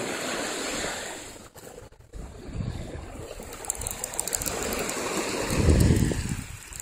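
Small waves washing on the bay shore, a steady rushing noise, with low rumbling buffets on the phone's microphone that are loudest near the end.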